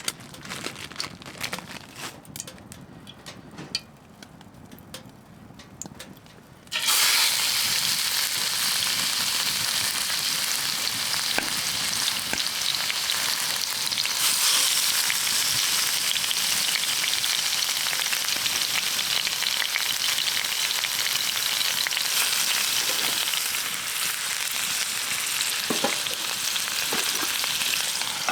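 Rouladen (rolled beef with bacon and pickle) frying in a hot pan on a wood stove: a loud, steady sizzle that starts suddenly about seven seconds in. Before it come light clicks and crinkling from handling.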